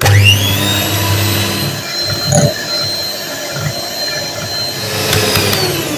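Electric hand mixer whipping cream in a glass bowl. The motor switches on and whines up to speed, runs steadily with its beaters whirring, then starts to wind down with a falling pitch near the end.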